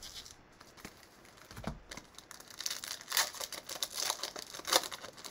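A 2020 Bowman Mega Box baseball card pack's wrapper being torn open and crinkled by gloved hands: a run of crackly tearing and crinkling, loudest in the second half.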